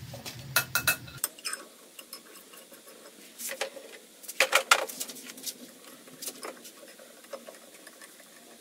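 Scattered metallic clicks and clinks as valve parts and a C-clamp valve spring compressor are handled and set on a diesel cylinder head, with a small cluster of sharper knocks about halfway through.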